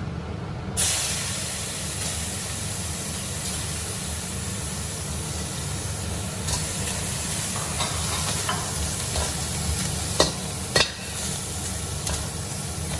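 Dried anchovies (ikan bilis) frying in hot oil in a stainless steel wok: the sizzle starts suddenly about a second in as they hit the oil and keeps going steadily. Near the end a metal spatula knocks and scrapes against the wok twice as they are stirred.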